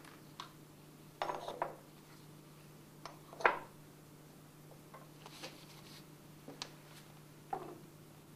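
Glass test tubes clinking and knocking against a wooden test-tube rack as they are lifted out and set back in. There are a handful of short, sharp clinks, the loudest about three and a half seconds in.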